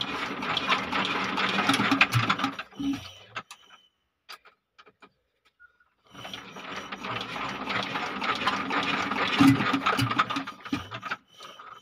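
Small diesel pump engine being turned over by hand crank, a rapid rattling clatter in two bouts with a pause of about two seconds between, stopping each time without catching. Air in the fuel line keeps diesel from reaching the engine.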